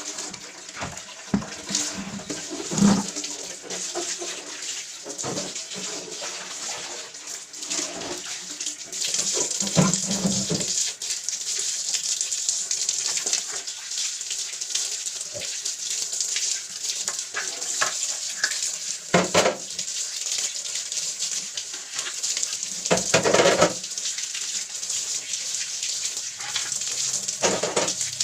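Water running from a tap into a sink as things are rinsed, with scattered knocks and clatters of items being handled. The running water gets louder about a third of the way in.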